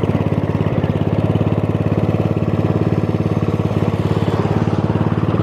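Murray riding lawn mower's Briggs & Stratton 15.5 hp overhead-valve engine running steadily, with a fast, even beat.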